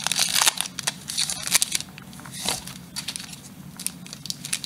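Foil Pokémon booster pack wrapper crinkling and tearing as it is ripped open by hand, dense for the first second and a half, then sparser crackles.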